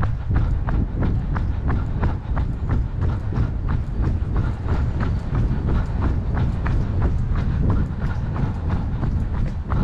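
A runner's footsteps on a park path, an even beat of about three steps a second, over a steady low rumble.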